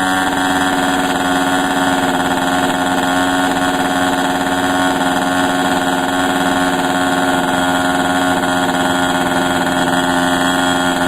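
Radio-control model airplane's motor running steadily at one unchanging pitch.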